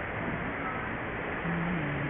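Steady rushing outdoor street noise at a crosswalk, with a brief low pitched sound about one and a half seconds in.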